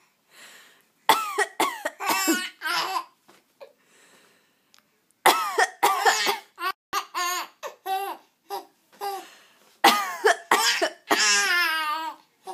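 A woman's fake coughs, three rounds of them, each answered by a baby laughing in quick high-pitched bursts.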